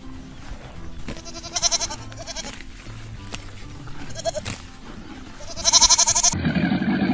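Four quavering bleats from a goat or sheep, the last the longest and loudest, over background music with a low repeating bass line. Near the end the bleating gives way abruptly to a lower, harsher sound.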